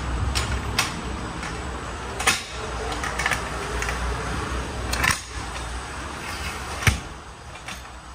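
A handful of sharp knocks and clatters, about five, over a low steady rumble that drops away near the end.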